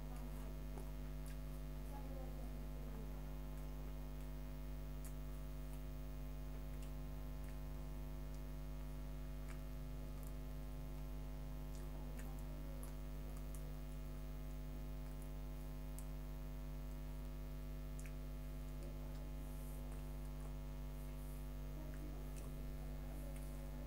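Steady electrical hum: a constant low drone with several steady tones above it, and a few faint scattered clicks.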